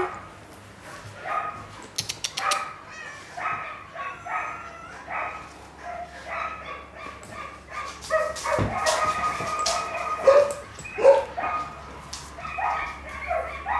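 A dog whining and whimpering over and over in short high whines, with a few louder yelps near the end. Its owner takes this for unease at cats close by.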